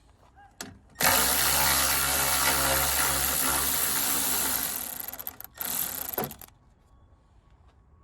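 Small handheld power tool's electric motor running in a long steady run of about four seconds that tails off, then a second short burst; a click comes just before.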